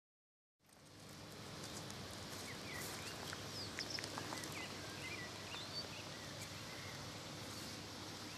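Silent for the first half second, then steady outdoor background noise with small birds chirping now and then.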